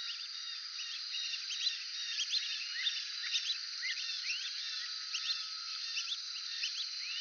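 Brazilian teals (red-footed form) calling: a dense chorus of short, high whistles, several a second and overlapping one another, over a steady high-pitched background.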